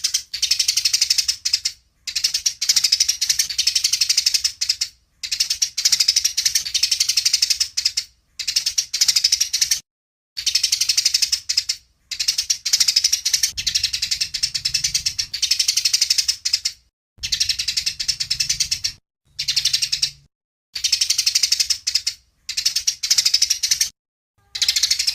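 Songbird's rapid, rattling trill of high notes, repeated in phrases a second or a few seconds long with short breaks between, from a masteran recording of birdsong used to train competition songbirds.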